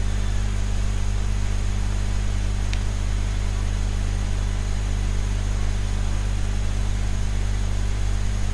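Steady low hum with an even hiss, unchanging throughout, and one faint tick about three seconds in.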